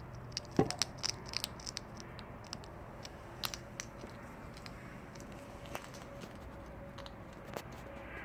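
An animal crunching dry cat food: a quick run of crisp clicks in the first two seconds, then sparser single crunches.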